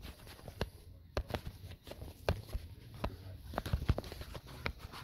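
Handling noise of a camera being propped up on a workbench: scattered light clicks, taps and knocks at an irregular pace.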